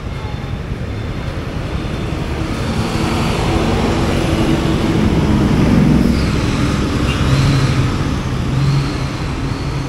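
City road traffic heard from a scooter being ridden: a steady rumble of motorbike and bus engines that grows louder from about three seconds in.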